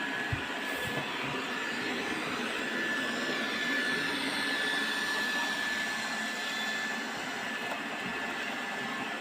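Robot vacuum cleaner running: a steady whirring hum with a thin high whine, and a couple of soft thumps in the first second.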